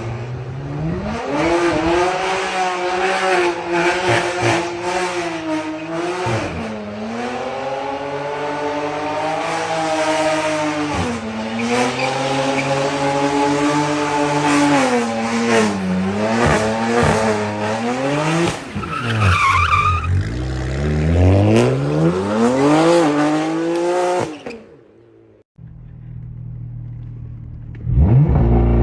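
Car engine revving hard, its pitch rising and falling again and again, with tyres squealing and skidding as the car drifts. About 25 seconds in the sound cuts off abruptly to a quieter, steady engine, and near the end a loud rev starts again.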